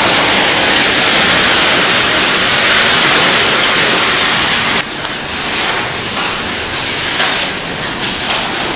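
Hailstorm: hail and heavy rain pounding down in a loud, dense hiss. About halfway through, the noise drops suddenly and individual sharp hailstone hits stand out.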